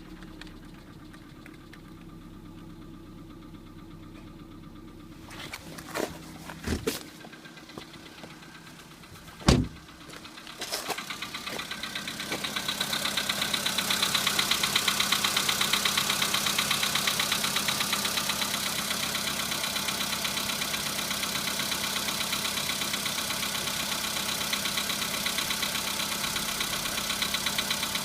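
Volkswagen Polo sedan engine running at idle with a knock, a fault that began at 15,000 km. After a few thuds, the loudest about nine seconds in, a fast, even ticking knock comes up louder and holds steady.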